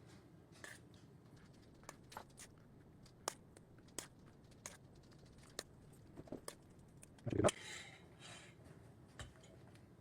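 A spoon tapping and clicking against a muffin pan and mixing bowl as a thick chicken and vegetable filling is scooped into crust-lined cups, in quiet scattered taps with one louder knock and a short scrape about seven seconds in.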